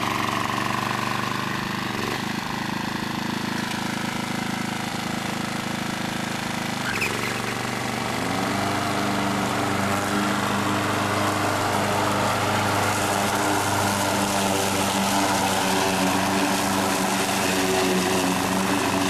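Wolf Garten ride-on mower's small engine running steadily as the mower drives across grass. Its note changes about seven seconds in.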